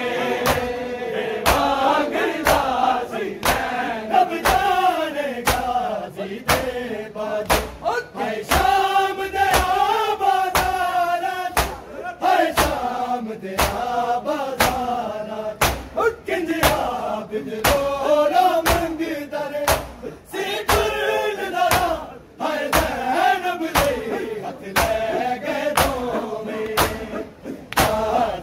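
A crowd of men doing matam, striking their bare chests with open palms in unison in a steady beat, under a noha chanted by male voices.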